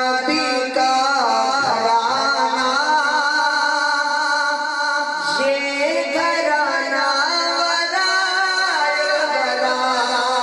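A man singing a naat, an Urdu devotional song in praise of the Prophet, into a handheld microphone through a sound system. He holds long notes that bend and waver in pitch.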